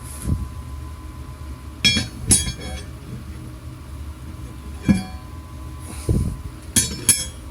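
Steel parts of a weld-your-own exhaust header kit (pipe bends and flanges) being handled: several separate metallic clinks with a brief ring, two close together about two seconds in, one near five seconds and two near the end, with a couple of duller knocks between.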